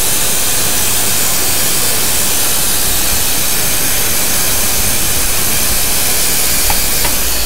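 Smoke Cloak security fog generator discharging theatrical smoke with a loud, steady hiss that cuts off suddenly at the end.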